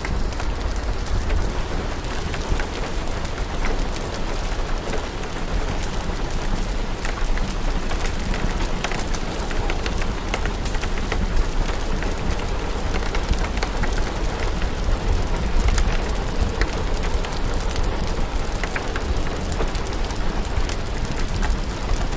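Steady rain with scattered sharp crackles from a fire in a fireplace.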